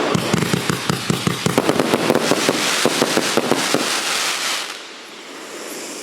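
Wolff 'Obsessed' 168-shot fan-shaped compound firework cake firing a rapid volley of sharp shots and crackling bursts, which stops abruptly about four and a half seconds in as the cake finishes.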